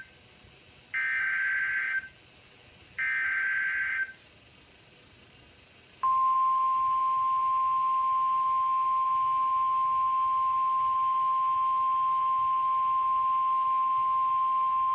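NOAA Weather Radio Emergency Alert System (SAME) header: the end of one burst of warbling digital data tones, then two more one-second bursts about a second and three seconds in. About two seconds after the last, the steady single-pitch 1050 Hz weather radio alert tone comes on and holds for about nine seconds, signalling that a warning broadcast is about to start.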